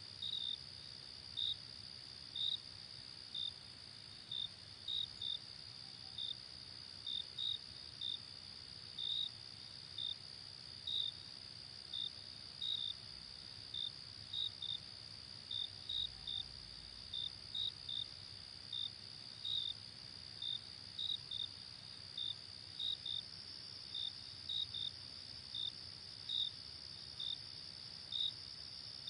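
Crickets chirping: a steady high trill with short, separate chirps over it, about one to two a second, often in pairs.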